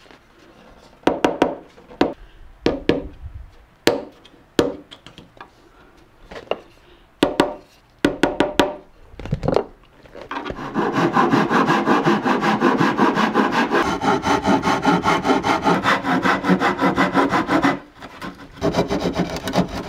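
A hand tool working wood: separate short scrapes and knocks for about the first ten seconds, then about eight seconds of fast, steady rubbing strokes, with a few more strokes near the end.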